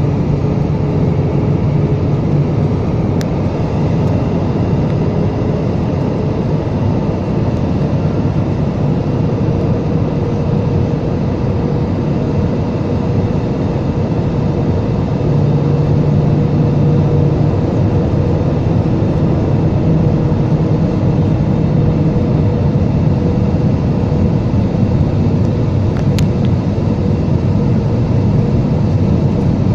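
Jet airliner cabin noise heard at a window seat: a steady rush of engines and airflow with a low, even hum, as the plane descends on approach. It grows slightly louder about halfway through.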